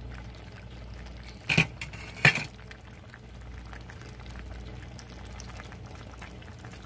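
Macaroni and chicken in sauce simmering in a pan, with a steady bubbling noise. Two sharp clinks come about a second and a half in and again a moment later.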